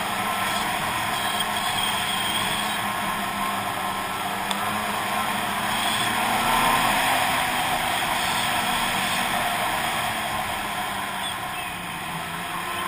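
Snowmobile running at steady speed along a snowy trail: engine and track heard as a steady rushing noise with a faint low hum, swelling slightly a little past the middle.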